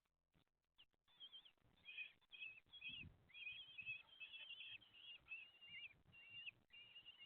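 Bird calls: about a second in, a quick, continuous run of high, pitch-changing chirping notes starts and carries on, with a faint low rumble underneath.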